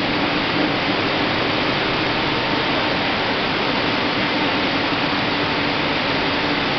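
Steady loud hiss of process machinery and air in an aseptic filling plant, with faint steady hums underneath and no change throughout.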